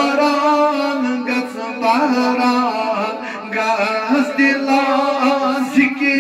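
Two men singing a Kashmiri naat unaccompanied, in long held notes that waver up and down.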